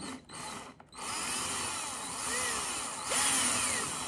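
Cordless drill boring a hole through a clear plastic jar: the motor starts about a second in and runs steadily, its pitch rising and falling, and gets louder near the end.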